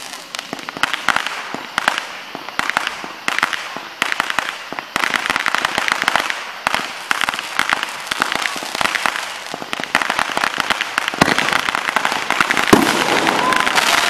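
Fireworks crackling in dense, rapid strings of small pops, with a deeper bang near the end followed by whistling fireworks.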